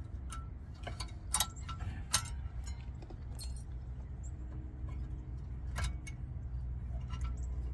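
Light metallic clinks and clicks of brake parts and hand tools being handled, with two sharper clicks about a second and a half and two seconds in, over a steady low rumble.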